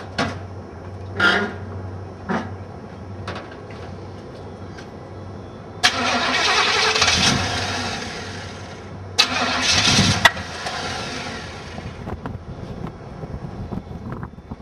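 A few short knocks, then a carbureted Chevrolet Monte Carlo SS V8 being started: a loud burst of engine sound about six seconds in lasting some three seconds, and a shorter one about nine seconds in.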